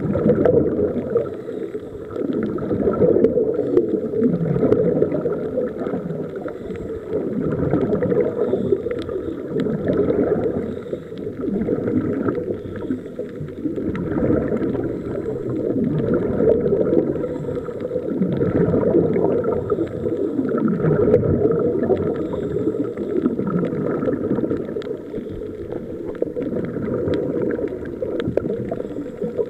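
Scuba regulator breathing heard underwater: exhaled bubbles gurgling and crackling, swelling and fading every two to three seconds with each breath.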